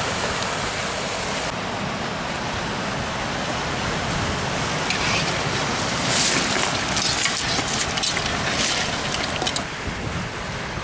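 Steady wash of surf on a stony beach mixed with wind on the microphone, with a few brief sharper sounds in the second half.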